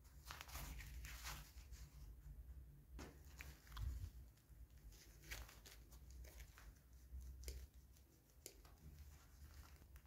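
Near silence with faint scattered clicks and rustles of gloved hands handling a pair of needle-nose pliers.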